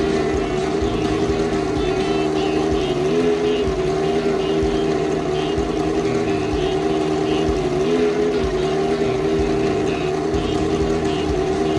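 Cosworth V8 of a historic AGS Formula 1 car running at a steady fast idle in the garage, with two brief small rises in revs about three and eight seconds in.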